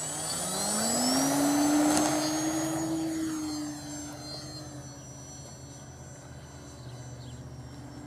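Electric motor and propeller of an RC model Corsair throttling up for takeoff: a rising whine that peaks about two seconds in, then fades to a distant drone as the plane climbs away.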